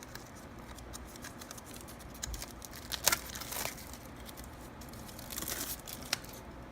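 Plastic packaging being opened by hand: scattered crinkling and rustling with a few sharp clicks, the loudest a little after three seconds in.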